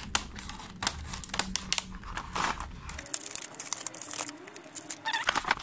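Stiff clear plastic blister packaging crinkling and crackling in irregular bursts as it is handled and pulled open from around a hot melt glue gun.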